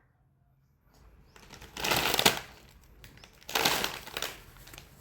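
Crinkling and rustling of a packet being handled, in two short spells with a pause between.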